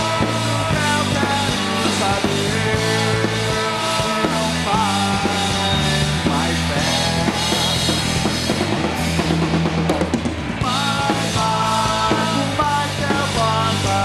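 Rock band playing live through an instrumental passage with no singing: drum kit and congas over sustained guitar and bass notes.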